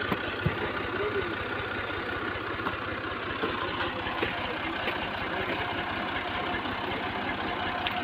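Tractor engine idling steadily.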